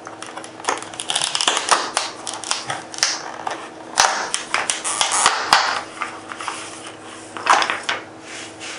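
Stiff clear plastic blister pack being pried and peeled off its cardboard backing card: irregular crackling and clicking of the plastic, with a few sharper snaps about four to five and a half seconds in.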